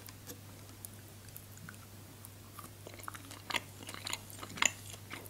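Biting into and chewing a chocolate-coated marzipan stick: soft, scattered clicks and mouth sounds that pick up from about three seconds in, over a faint steady low hum.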